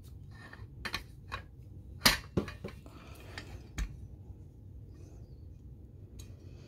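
Hex key clicking and tapping against a bolt head and the pull-up bar's swing arm as the bolt is fitted and turned: a few scattered sharp clicks, the loudest about two seconds in.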